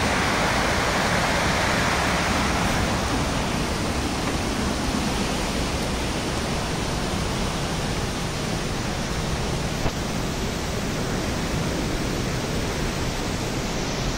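Steady rushing of white water from a fast creek tumbling over rocks, a little stronger over the first couple of seconds.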